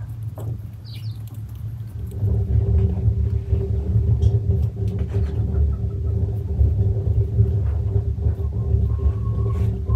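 A running motor: a steady low rumble with a constant hum that comes in about two seconds in and holds.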